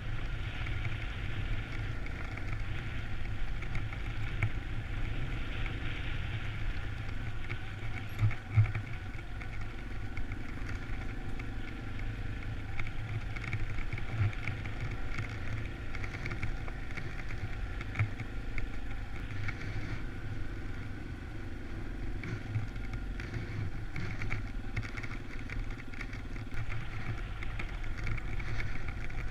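Motorcycle engine running at a slow, steady speed while riding a rough dirt road, with a few knocks and rattles from the bumps, the loudest about 8 seconds in.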